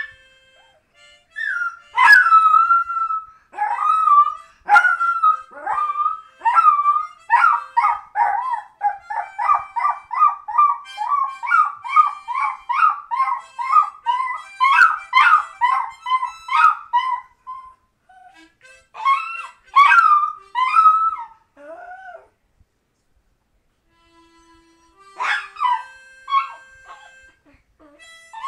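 Miniature pinscher howling along to a harmonica, its long howls turning into a fast run of short, yipping notes through the middle. The howling stops for a few seconds near the end, then starts again briefly.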